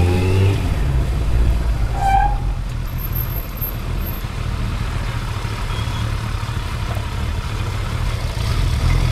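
Kawasaki ZRX 1100's inline-four engine running steadily at low revs, with a short high squeak about two seconds in.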